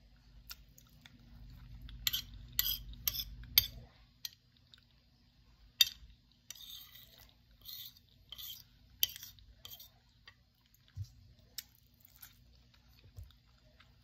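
Close-up eating sounds: chewing, with a string of short clicks and scrapes of a spoon on the plate. They come thickest from about two to nine seconds in, with a few more near the end.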